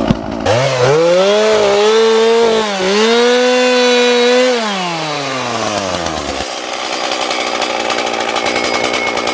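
Small two-stroke chainsaw revved up to high speed about half a second in, dipping briefly once, holding steady, then winding down over about two seconds and dropping back to idle. Its chain is dull: the owner calls it shot.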